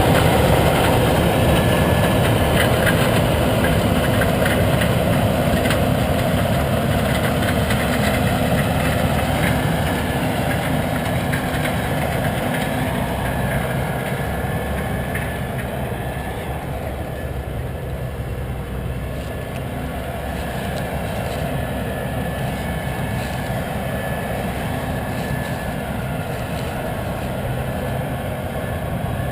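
Diesel engines of a combine harvester and a grain-cart tractor at work harvesting corn: a steady heavy drone that slowly grows quieter over the first twenty seconds or so, then holds.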